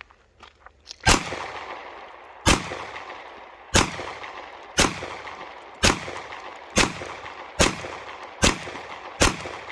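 Glock 45 9mm pistol fired nine times, shots about a second apart and coming a little quicker near the end, each shot trailing off before the next. A few faint clicks come just before the first shot.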